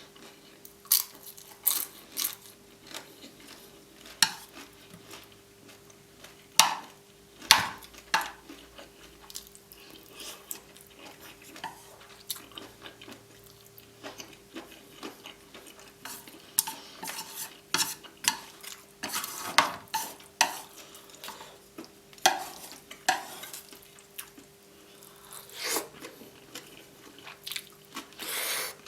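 Cutlery clinking and scraping irregularly against a plate while noodles are scooped up and eaten, with some chewing, over a faint steady hum.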